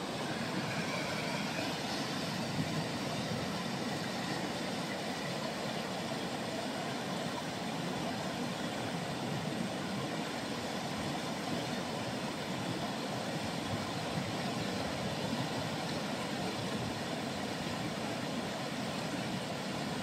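Fast river rushing steadily through rapids, its white water breaking over boulders.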